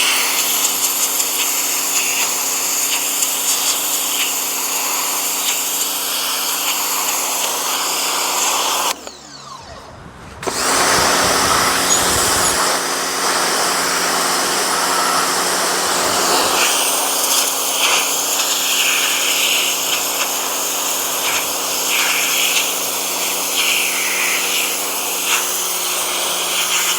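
Pressure washer running, its motor humming steadily while the water jet hisses against brickwork. It cuts out for about a second and a half around nine seconds in, then starts again.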